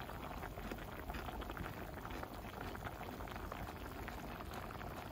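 Budae-jjigae (Korean army stew) boiling in a pan on a portable butane stove: a steady bubbling made of many small pops.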